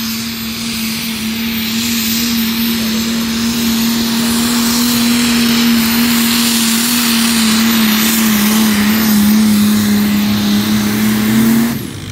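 Antique tractor engine running hard under load on a pulling sled, holding a steady high pitch that dips slightly partway through, then cutting off suddenly near the end.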